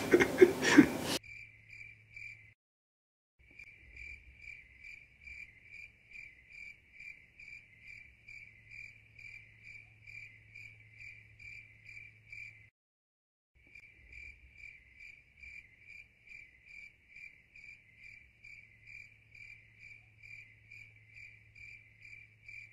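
Cricket chirping in a steady rhythm of about two chirps a second over a faint low hum, stopping briefly twice.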